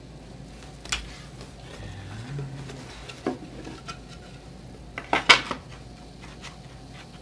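Scattered clicks and knocks of parts being handled: the electric screwdriver set down and the wooden footpad laid onto the OneWheel Plus frame. The loudest is a quick cluster of knocks about five seconds in.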